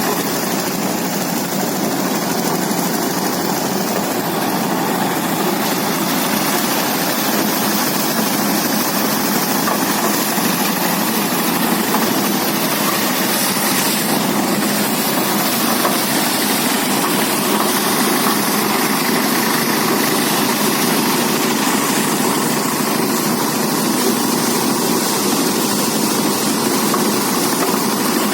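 Motorised rice threshing machine running steadily, a loud, even mechanical din.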